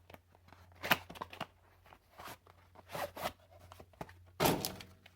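Handling and unpacking a new terminal release tool set: plastic packaging crackling, with clicks and rustles, loudest about a second in and in a longer crackle about four and a half seconds in.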